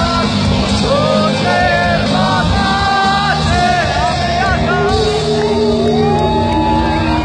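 Bangladeshi rock band playing live with a singer over a full band, the crowd shouting along, heard from among the audience.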